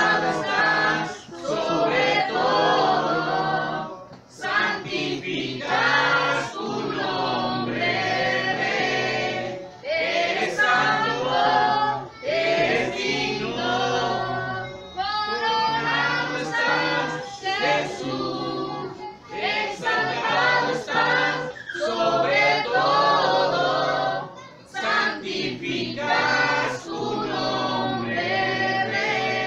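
Congregation singing a worship song together, several voices over a steady low accompanying note.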